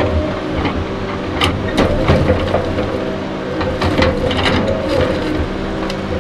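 Tigercat 234B knuckleboom log loader running steadily under load while its grapple handles logs onto a log truck's load. Sharp wooden knocks of logs striking the stack come in a cluster about a second and a half to two seconds in, and again around four seconds.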